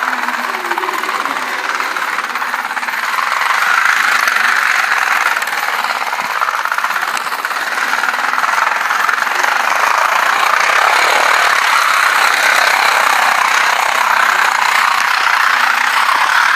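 Toy train running on its track with a steady, rapid mechanical rattle from its motor and wheels, a little louder from about four seconds in.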